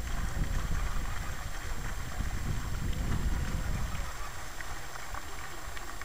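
Wind buffeting the microphone, a low uneven rumble that eases off about four seconds in.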